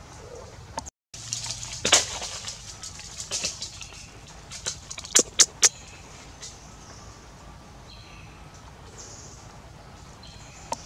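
Outdoor tree-canopy ambience: a steady hiss with a cluster of sharp clicks and crackles between about two and six seconds in, and a few faint high chirps near the end. The sound cuts out briefly about a second in.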